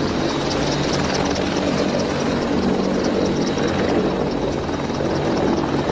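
Helicopter in flight, its rotor and engine running steadily.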